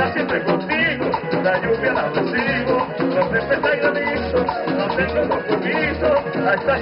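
Live vallenato band music with a steady bass beat, accordion melody lines and shaken or scraped percussion.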